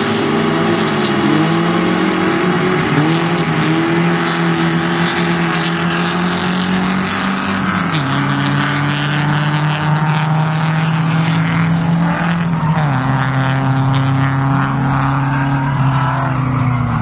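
Drift cars' engines held at high revs, with revs rising and falling as the cars slide through the corners; the engine pitch drops in steps twice.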